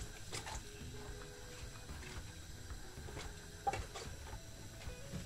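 Soft kitchen handling sounds: a few light clicks and one sharp knock a little under four seconds in, over a low steady hum.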